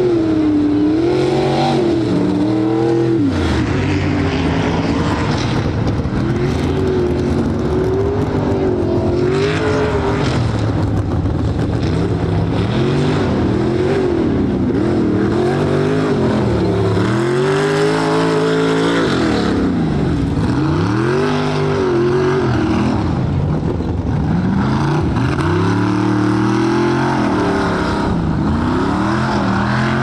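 Truck engine revving up and down under hard throttle, its pitch rising and falling over and over, every second or two.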